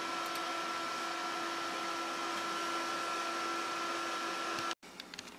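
Steady hum of switched-on CNC controller and computer equipment: a constant whirring with a steady whine in it. It cuts off abruptly near the end, leaving fainter room noise.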